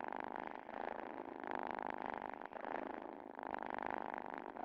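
Domestic cat purring, a fine pulsing rumble that swells and fades with each breath, about a second per phrase. The cat is excited by valerian.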